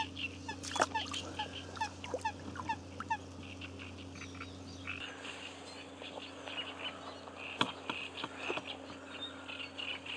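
Frogs calling: many short chirps repeated quickly in a chorus over a faint steady hum. The hum drops away about five seconds in, and a couple of sharp clicks stand out.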